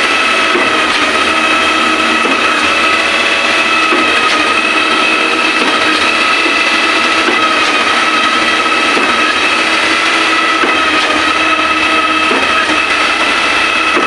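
Truck-mounted concrete boom pump running under load while pumping concrete: a loud, steady mechanical drone with a high whine held at a constant pitch.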